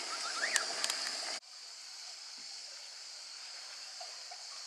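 Water ambience around a boat: a steady hiss of moving water with a strong high band, with a few short rising chirps and clicks in the first second and a half. About a second and a half in, the sound drops abruptly to a quieter, steady hiss.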